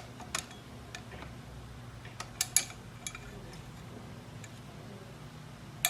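A few scattered sharp clicks and knocks of exercise-bike parts being handled while the resistance cable is forced toward its hook, the loudest pair about two and a half seconds in and another near the end, over a steady low hum.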